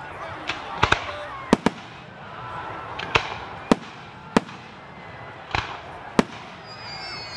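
Aerial fireworks shells bursting, about ten sharp bangs at irregular intervals, with spectators' voices between them and a high, slowly falling whistle near the end.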